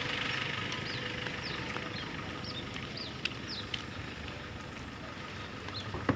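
A vehicle engine running steadily, with birds chirping over it in short, repeated falling notes.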